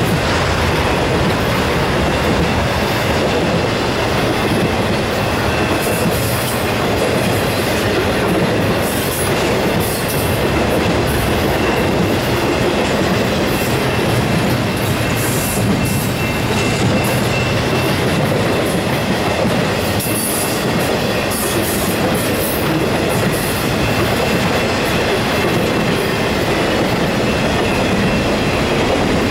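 Intermodal freight train of trailer flatcars and double-stack container cars rolling past close by: a steady, loud rolling noise of steel wheels on rail, with scattered clicks and a faint thin high tone from the wheels.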